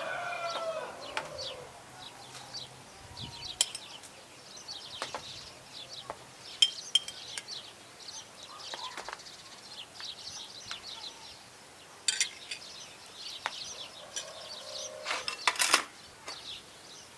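A rooster's crow tailing off in the first second or so, then small birds chirping, with scattered sharp clicks and knocks; the loudest clatter comes near the end.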